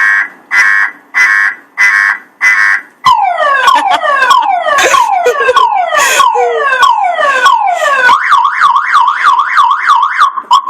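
Car alarm siren cycling through its tone patterns: a loud beep repeating a little faster than once a second, then about three seconds in a run of falling sweeps, then about eight seconds in a fast up-and-down warble.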